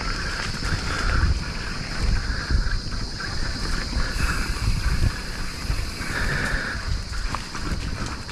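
Wind rumbling unevenly on the microphone of a moving action camera, with a steady high-pitched hum and a pulsing mid-pitched buzz behind it.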